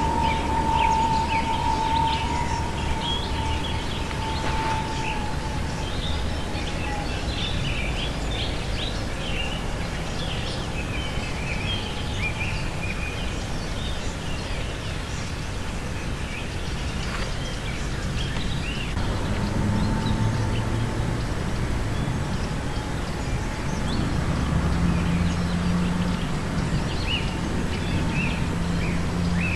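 A flock of birds in flight, giving many short, high calls that overlap throughout. Under them runs a steady low rumble with a faint hum.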